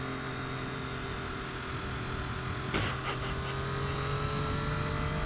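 Motorcycle engine running at steady cruising revs, its pitch slowly rising from about halfway as it picks up speed. There is a short clatter of clicks about three seconds in.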